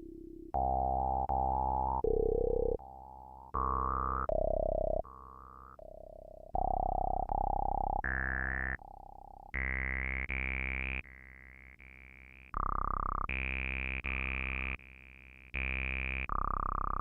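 Korg microKorg arpeggiating a Behringer Neutron analog synthesizer: a sequence of held, buzzy synth notes that step between pitches every half second to a second and a half, each starting and stopping sharply, alternating louder and softer, with the tone growing brighter toward the end.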